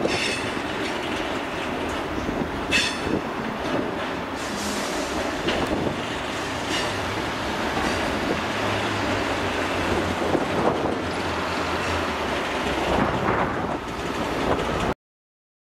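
Freight wagons rolling past: a steady rumble of wheels with clattering over rail joints and a few brief high wheel squeals. The sound stops abruptly near the end.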